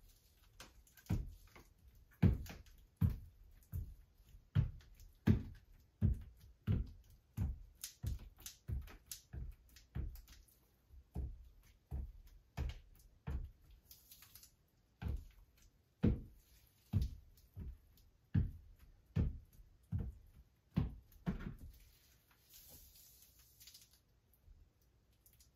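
Grout float pressed and knocked against a sheet of glass mosaic tiles on a wall, bedding them into the thinset: a steady run of dull thumps, a little more often than once a second, that stops a few seconds before the end.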